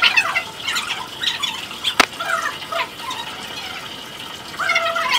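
Pomeranian puppy whining in short, high-pitched cries while it is held and washed in its bath, with one sharp click about two seconds in.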